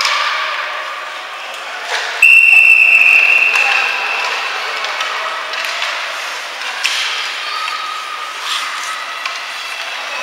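Referee's whistle in an ice rink: one long, loud, high-pitched blast about two seconds in, lasting under two seconds and tailing off, over the steady background din of the rink.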